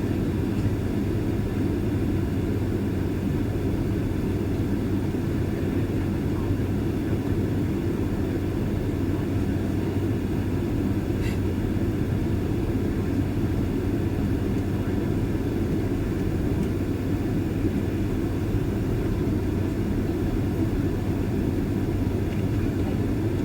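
Boeing 767-300ER jet engines running steadily while the airliner taxis: an even low rumble with a steady hum underneath, neither rising nor falling.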